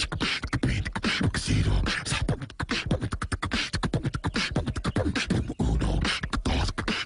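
Rapid beatboxing: a fast stream of mouth clicks and hissing snares over deep bass thumps, which cuts off abruptly at the end.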